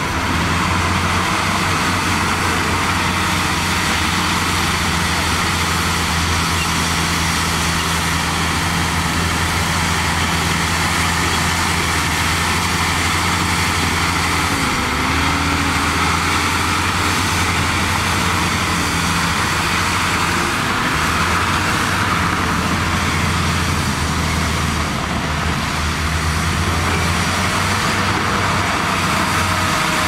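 Diesel engine of a Shantui SD16L crawler bulldozer running steadily under load as it pushes dirt: a constant low engine hum under a broad mechanical noise.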